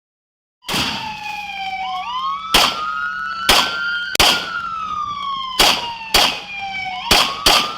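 Police car siren wailing, slowly rising and falling, while a string of about seven loud gunshots goes off over the last five seconds, some in quick pairs. The audio is cut off for the first moment.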